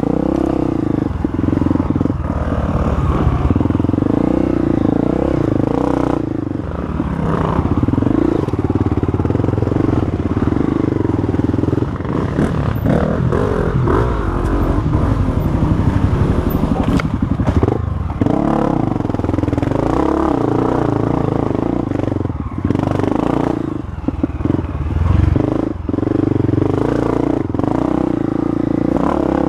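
Honda CRF250F's single-cylinder four-stroke engine running under load on a rough dirt trail. The note holds steady for long stretches, and through the middle it rises and falls with the throttle. Clattering and scraping from the bike jolting over the ground and brushing through vegetation runs alongside it.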